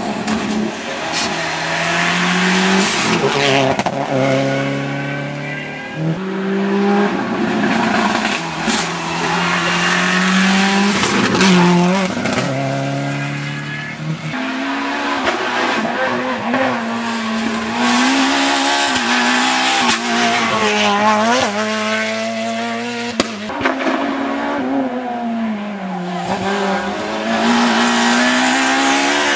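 Rally cars driven flat out on a tarmac stage: a car's engine revs up and drops back with each gear change as it passes, with tyre squeal. In the second half another car approaches, its engine note rising and falling as it is driven through the bends.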